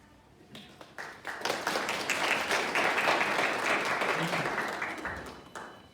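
Audience applauding: a few single claps grow into full applause within the first two seconds, which then dies away near the end.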